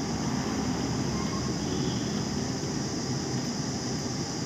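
Steady low hum and hiss of background machine noise, with no breaks or distinct events.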